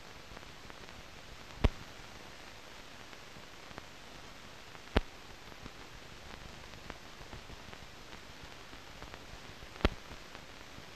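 Steady hiss of a 1938 optical film soundtrack with no recorded sound on it, broken by three sharp pops a few seconds apart and some fainter ticks: surface noise from the aged film.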